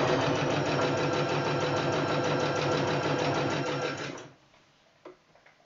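Singer Talent domestic sewing machine running at a steady speed and stitching a hem, with a rapid even stitch rhythm. It stops abruptly about four seconds in, followed by a small click or two.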